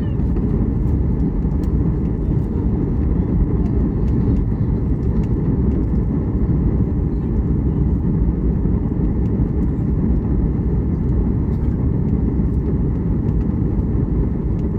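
Steady low rumble inside the cabin of a Boeing 737 MAX 8 airliner: engine and airflow noise heard from a passenger seat, even in level throughout.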